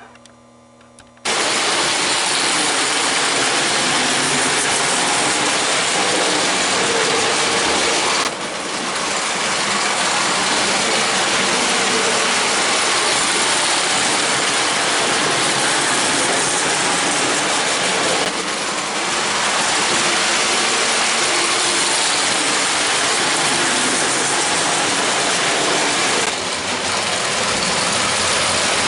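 1934–35 Marx Commodore Vanderbilt tinplate toy locomotive running under power, its electric motor and gears running steadily with its tin cars rattling on the track. The noise starts abruptly about a second in and dips briefly three times; the motor is running well after repairs to its broken gears and cleaning.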